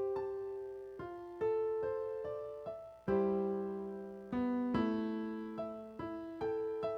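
Slow piano music: single notes and chords struck and left to ring and fade, with a fuller chord about three seconds in.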